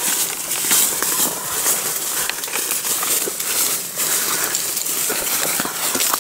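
Footsteps crunching through dry fallen leaves, with twigs snapping and branches rustling against clothing as people push through undergrowth.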